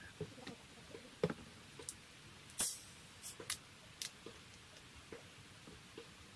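Screw cap of a plastic Mountain Dew soda bottle being twisted open: several sharp clicks and a short hiss of escaping carbonation about two and a half seconds in, followed by small clicks and faint ticks.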